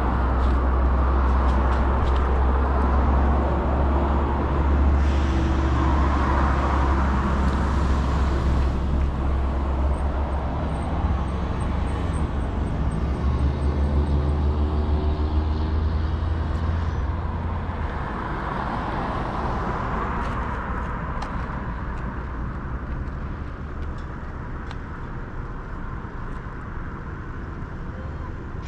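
City street traffic heard from a moving bicycle: cars passing, over a heavy low rumble that fades away about two-thirds of the way through.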